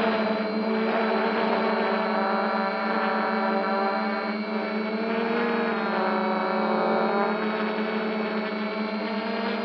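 Quadcopter's electric motors and propellers whirring steadily, heard close up from a camera mounted on the frame, the pitch dipping and rising again about halfway through as the motors change speed.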